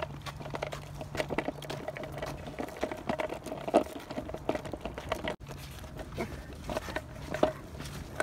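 Small cruiser skateboard rolling on a concrete sidewalk: a steady hum with many irregular ticks and crackles as the wheels pass over grit and pine needles.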